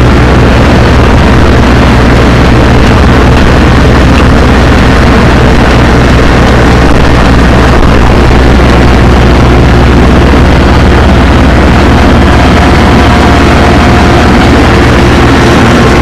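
Compact tractor engine running steadily and loud while the tractor mows grass.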